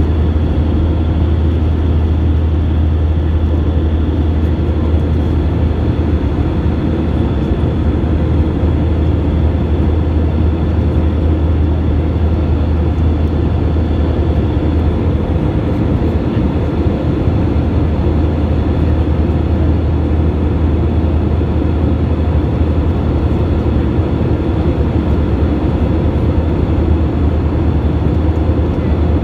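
Steady in-flight cabin noise of an Airbus A320 heard inside the cabin at a window seat over the wing: jet engines and airflow making a constant roar with a strong low drone.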